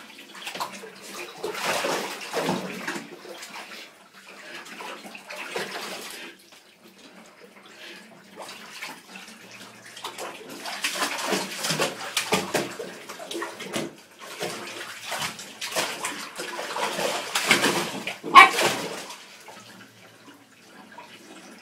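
Bath water splashing and sloshing in irregular surges as a cocker spaniel puppy paddles about in a bathtub, with quieter stretches between and one sharp, louder splash near the end.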